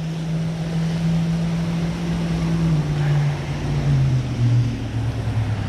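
Steady low engine hum from a passing motor vehicle, its pitch dropping about three seconds in as it goes by, over faint outdoor hiss.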